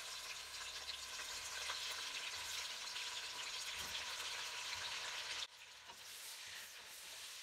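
Cubes of beef sizzling as they sear in hot rendered beef suet in a steel pot. The sizzling drops sharply quieter about five and a half seconds in.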